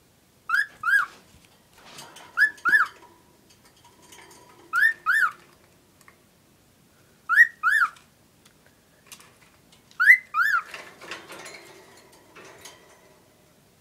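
Cockatiel whistling a two-note phrase, each note a quick rise and fall in pitch, repeated five times with gaps of about two seconds.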